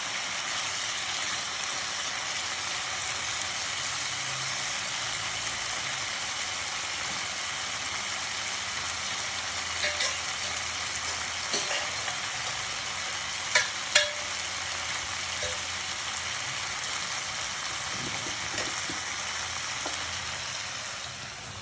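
Chicken masala frying steadily in a kadhai, its water cooked off and the chicken done. A few sharp clicks of a spoon against the pan come around the middle.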